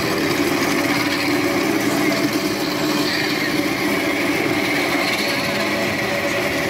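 Wood lathe running while a long-handled turning tool cuts a spinning square wood blank down to a round cylinder, throwing off shavings. The sound is a steady machine noise with the rough cutting of the tool on the wood.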